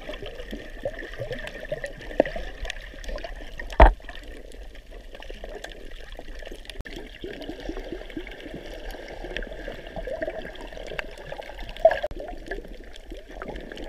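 Underwater sound picked up by a camera held below the surface: a muffled water wash with many small scattered clicks, a sharp knock about four seconds in and a smaller one near the end.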